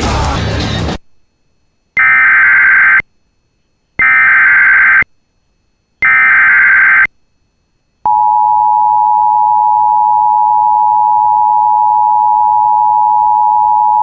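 Emergency Alert System header for a new warning: a brief burst of noise at the start, then three one-second bursts of SAME digital data tones, each two seconds apart. About a second later the EAS two-tone attention signal begins, a loud steady tone held from then on.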